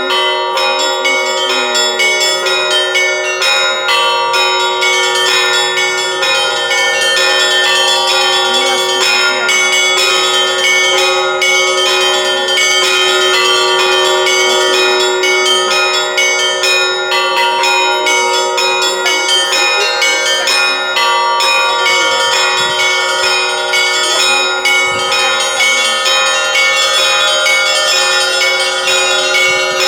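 Russian Orthodox church bells rung by one bell-ringer in the zvon style: quick, dense strikes on the small high bells over the sustained hum of the larger bells, ringing without a break.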